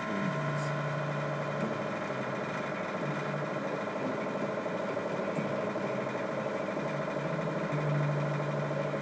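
A steady mechanical hum, with a lower drone that swells in and out a few times.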